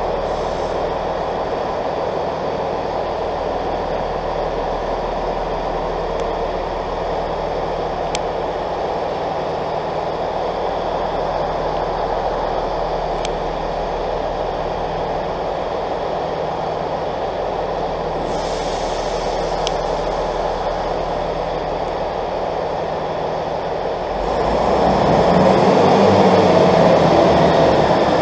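Diesel multiple units idling under the station roof, a steady engine hum. About 24 seconds in a diesel engine revs up and the throb grows louder.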